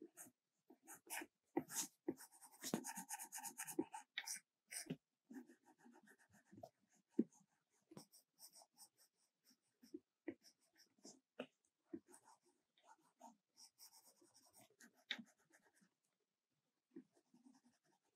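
Stylus tip tapping and scratching on an iPad Pro's glass screen: short separate strokes, with two runs of quick back-and-forth strokes, a few seconds in and again near the end.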